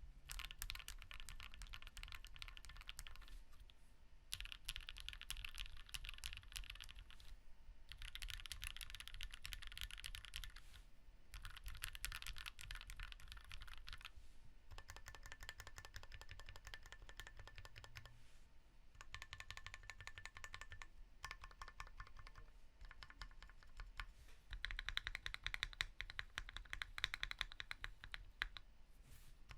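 Typing on a custom 60% mechanical keyboard with lubed Gateron Cap V2 switches on a brass plate in a foamed PSD60 RE case. The keystrokes come in quick runs of a few seconds with short pauses between them. The sound is poppy with some hollowness, and the busiest, loudest run comes near the end.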